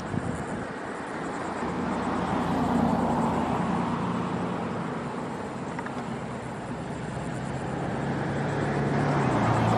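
A motor vehicle running and passing, with a low engine hum and road noise. It swells to a peak about three seconds in, eases off, then builds again near the end.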